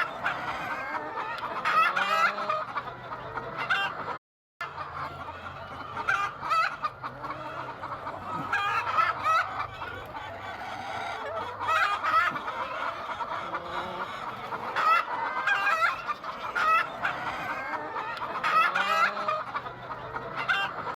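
A flock of Golden Misri chickens clucking and calling over one another, with crowing now and then, over a faint low hum. The sound drops out completely for a moment about four seconds in.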